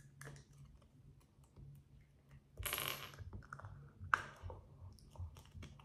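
Plastic Lego bricks clicking and clacking as they are handled, with a short hissy rush about two and a half seconds in.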